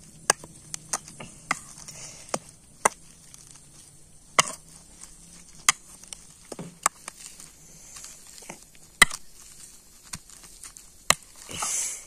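Metal potato masher mashing boiled potatoes in a ceramic bowl: sharp, irregular knocks and clinks about one to two seconds apart, with a brief scraping rasp near the end.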